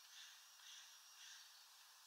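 Near silence: a faint outdoor hiss that swells gently about twice a second, with no distinct bird call.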